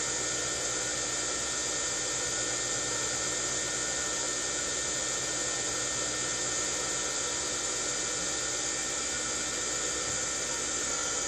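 Steady whir and hiss of a small electric motor running continuously, with a faint hum and no change in pitch.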